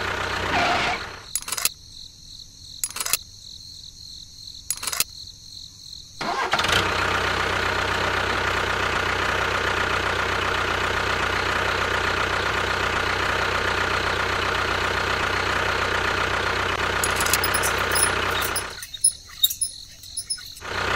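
A small motor starting about six seconds in and running steadily for about twelve seconds before stopping, after a few sharp clicks.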